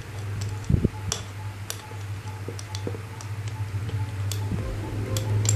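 Light metal clicks and taps as a small chain-tensioner screw is dropped into and fitted on the metal chainsaw-bar mount of an angle grinder, with a low knock about a second in, over a steady low hum.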